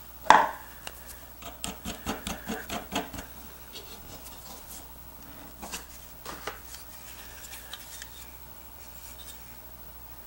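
Vintage Stanley No. 4C cast-iron hand plane being picked up, turned over and handled on a workbench: a sharp knock just after the start, then a run of light clicks and taps, with a few more scattered ones later.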